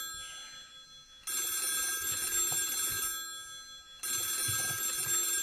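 Mobile phone ringing in repeated rings, each nearly three seconds long. After the first ring fades there is a pause of about a second, then a full ring comes, and another begins about four seconds in.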